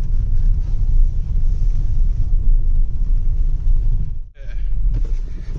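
Heavy low rumble of a car driving on an unpaved dirt road, heard from inside the cabin. The sound drops out for a moment about four seconds in, then the rumble returns.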